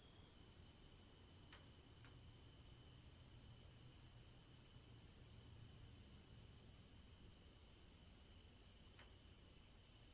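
Faint night crickets chirping steadily, a high pulsing trill over a few thinner steady high tones.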